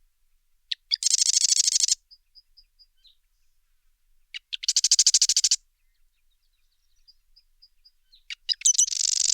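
Wren singing: three loud bursts of very rapid, trilled high notes, each lasting about a second and spaced a few seconds apart, with faint short high peeps in the gaps.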